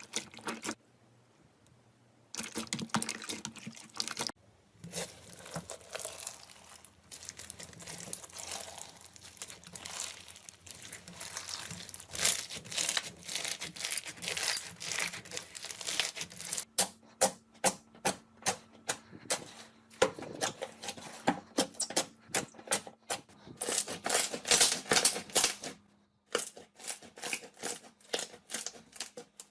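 Slime being squeezed and pressed by hand, a crackling, clicky squish. In the second half it goes as a run of regular presses, about two a second.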